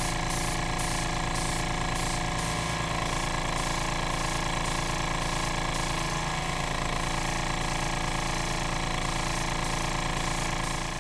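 Handheld gas torch burning steadily as its flame heats the bayonet's steel to colour it, giving a loud, even roar with a low flutter.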